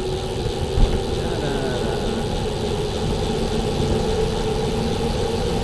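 Steady wind and road noise of a bicycle ride on a wet street, with the hum of nearby traffic and a single low bump just under a second in.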